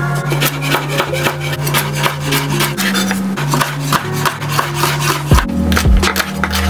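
Chef's knife chopping vegetables (carrot, red onion, green beans) on a bamboo cutting board in rapid, even strokes. Background music with held bass notes plays underneath.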